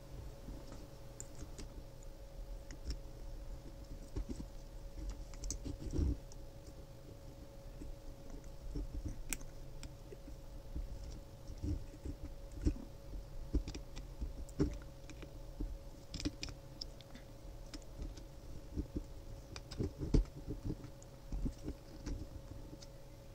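Scattered small clicks and taps of steel needle-nose pliers gripping and bending thin galvanized wire into hooks and handling small 3D-printed PLA parts, with a few soft knocks and a faint steady hum underneath.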